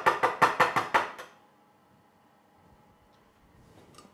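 Metal terrine mould full of parfait mixture rapped quickly and evenly on a wooden worktop, about seven knocks a second, to knock out trapped air bubbles so the mass sets smooth. The knocking stops about a second in and leaves quiet kitchen room tone with a faint click.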